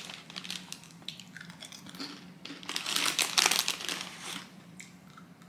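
Snack bag crinkling and rustling as a handful is taken out, loudest from about two to four seconds in.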